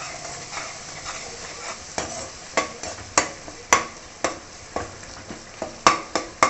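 Tomato masala sizzling as it fries in a kadai, stirred with a perforated metal spatula that scrapes and taps against the pan about twice a second, the strokes sharper after the first couple of seconds.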